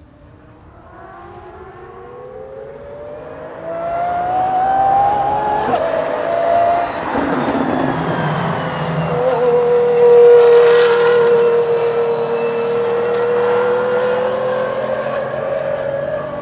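De Tomaso P72 prototype's 6.3-litre naturally aspirated V12 accelerating, its pitch climbing and dropping at upshifts about six and nine seconds in, then rising slowly again. The sound grows much louder over the first few seconds as the car comes on hard.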